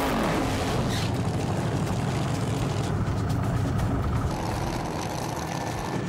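No-prep drag race car engines running loud at the starting line: a dense, rough low rumble throughout.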